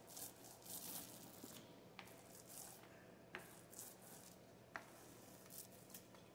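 Paint roller rolling wet paint over the side of a wooden bee box: a faint, sticky hiss in repeated short strokes, with a few light clicks.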